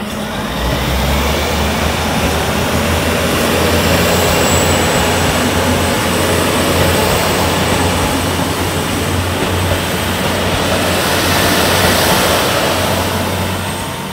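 JR East KiYa E195 rail-transport diesel train passing close by: a steady, loud engine rumble with a low hum under the running noise of its wheels on the rails, easing off near the end as it moves away.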